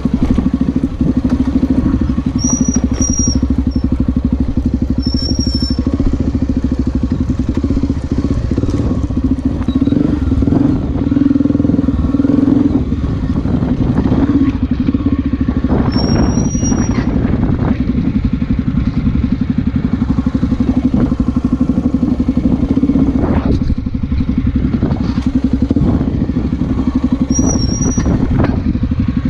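Honda Tornado's single-cylinder four-stroke engine running steadily under load as the motorcycle is ridden off-road, with scattered knocks and clatter. Four short, high squeaks are heard.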